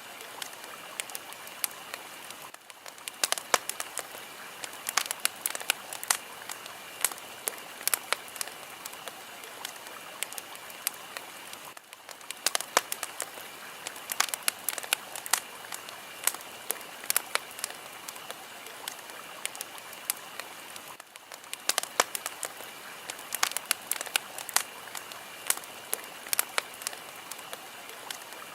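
Fire crackling: a steady hiss with frequent sharp pops and snaps of varying loudness. The pattern repeats about every nine seconds, as in a looped recording.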